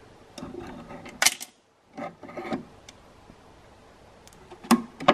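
Hands handling a small electrical contactor taken from a lathe's control box: light rubbing with a few sharp clicks, two of them clear, about a second in and near the end.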